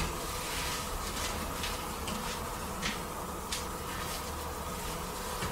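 A steady buzzing hum under hiss, broken by half a dozen short clicks and crackles.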